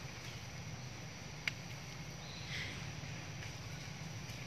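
Steady outdoor forest background with a low hum, broken by one sharp click about a second and a half in and a faint short chirp a little later.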